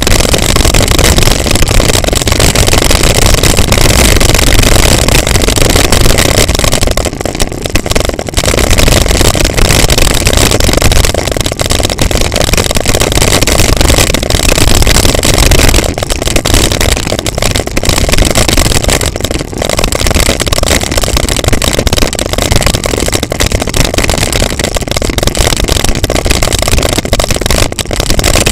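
Wind buffeting a handlebar-mounted camera's microphone, with knobby tyres rumbling over a gravel dirt track on a fast descent; a loud, steady noise that eases briefly a few times.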